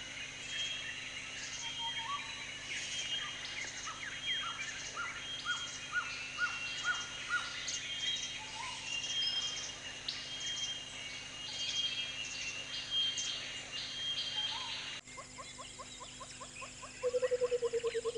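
Many birds chirping and calling over one another, a tropical-forest chorus, with a short run of repeated whistled notes partway through. After a sudden change in the background, a fast repeating trill starts, and a louder, lower trill comes near the end.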